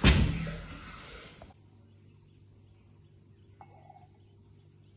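Wooden kitchen cupboard doors pushed shut with a sharp knock, followed by about a second and a half of fading handling noise. After that only a low room hum, with one faint short sound about three and a half seconds in.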